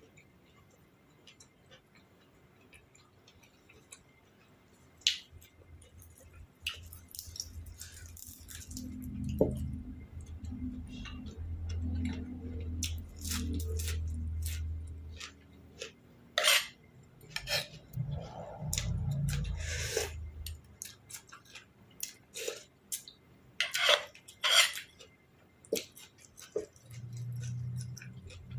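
Eating sounds: sharp, irregular clicks and taps of cutlery against dishes, with muffled chewing close to the microphone. The first few seconds are nearly silent.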